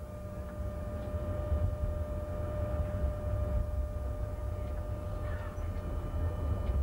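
A Paris tram running along its track, heard from the driver's cab: a low, continuous rumble with a steady high hum of one unchanging pitch over it. The sound grows a little louder over the first second or two.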